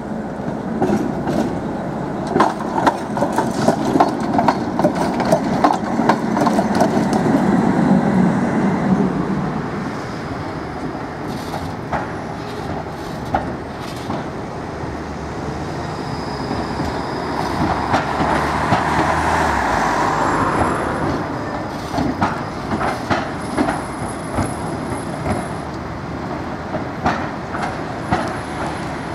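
City trams rolling past on street track, with a rumble of wheels on rail and repeated sharp clicks as the wheels cross rail joints and switches. The sound swells twice: a loud pass early on that fades by about ten seconds in, and a second pass around two-thirds of the way through.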